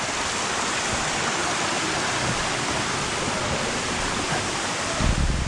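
Steady rush of a creek cascading through a narrow canyon toward a waterfall. A brief low thump comes near the end.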